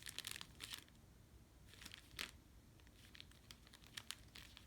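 Faint, scattered crinkling and rustling of dry leaves, petals and sticks being pressed onto sticky packing tape, in a few short clusters.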